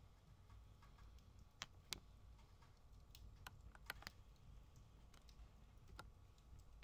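Fireplace fire crackling faintly: scattered sharp pops and snaps, about eight of them and a few in quick pairs, over a faint low rumble.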